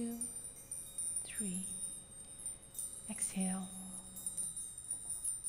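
Soft relaxation background music of wind chimes: many high, thin chime tones ringing and overlapping.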